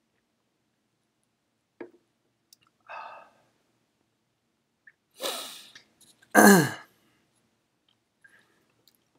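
A man's non-speech vocal sounds after a sip from a mug: a short breathy burst about five seconds in, then a louder voiced exhale that falls steeply in pitch.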